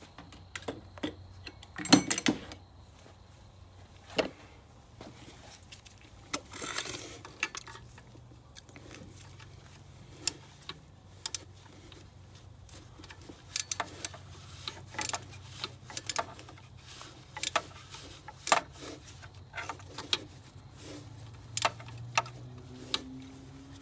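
Scattered metallic clicks and clinks of tools and parts being handled, with a louder knock about two seconds in and a short hiss about seven seconds in, over a faint steady low hum.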